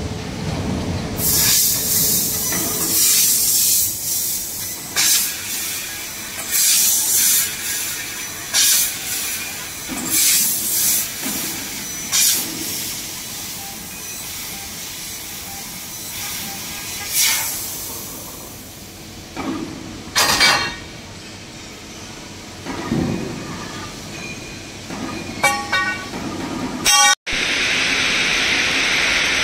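Fiber laser tube cutting machine at work, with repeated bursts of hissing assist gas, each from half a second to a few seconds long and irregularly spaced, as the cutting head pierces and cuts the tube. Near the end the sound breaks off abruptly and a steady hiss follows.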